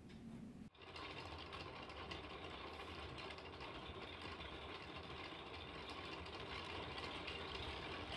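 A small machine running steadily with a fast, even rattle, cutting in abruptly less than a second in.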